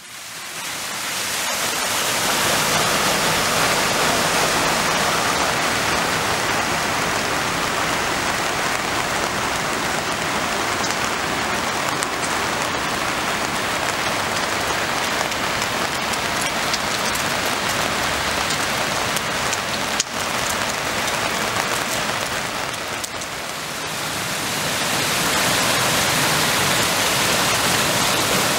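Steady heavy rain falling on a flooded street, a dense even hiss that fades in over the first couple of seconds.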